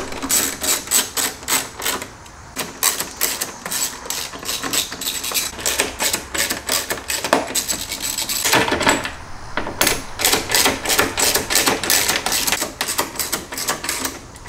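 Ratchet with an extension and a T30 Torx bit, clicking in rapid runs as six Torx screws are backed out. There are short pauses between runs, about two seconds in and again near the middle.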